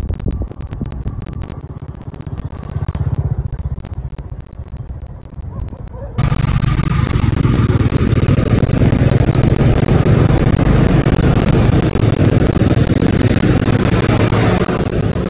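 Wind gusting on a phone microphone at first. About six seconds in, a sudden switch to a louder, steady rush of a motorcycle riding along a road, its engine mixed with wind noise.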